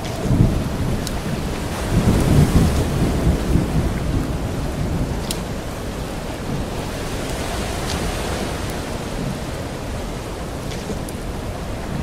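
Steady rain hissing, with occasional sharp drop ticks, and low rolling thunder that rumbles twice in the first few seconds and then dies away.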